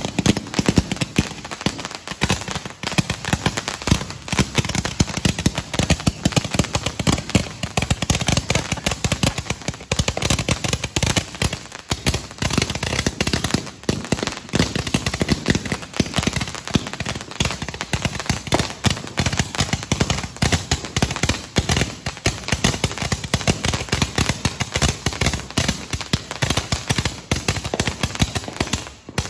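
A consumer firework cake of several hundred shots firing in rapid succession: a dense, continuous stream of launch thumps and small aerial pops, several a second, easing off right at the end.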